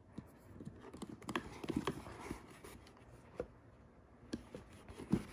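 Scattered light knocks and clicks from a Dyson Airwrap hair styler and its attachments being handled in their storage case. Several come close together a second or two in, then a few single ones.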